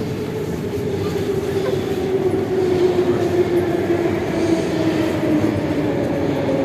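Metro train heard from inside the carriage: running rumble with a motor whine that falls slowly in pitch as the train slows.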